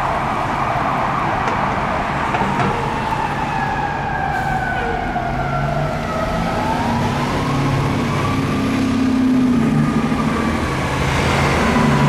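Fire truck siren wailing, sliding down in pitch and then rising again, with a low drone underneath in the second half.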